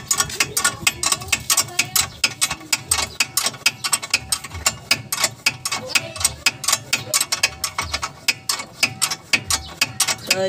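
Hand ratchet wrench clicking rapidly as it is swung back and forth, turning a bolt behind the front brake caliper and steering knuckle: several clicks a second in quick repeated strokes.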